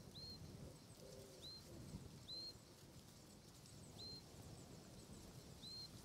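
Faint, high bird call: one short note that slides up and levels off, repeated five times at uneven intervals of one to two seconds over a low rumble.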